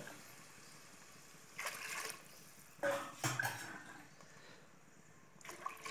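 Faint watery sounds from liquid masala in an aluminium pot, just topped up with water. A few short sloshing or bubbling sounds come about two seconds in, around three seconds, and near the end.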